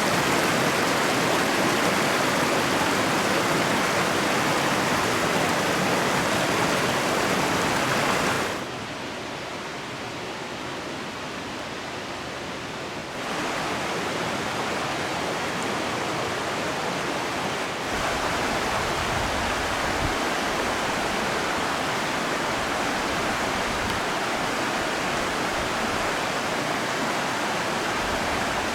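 Mountain river rushing steadily over rocks. The level changes suddenly three times, quieter about a third of the way in, then louder again, with a few low thumps in the second half.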